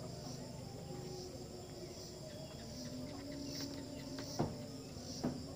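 Steady high-pitched insect chirping, pulsing about twice a second, with two short sharp clicks near the end.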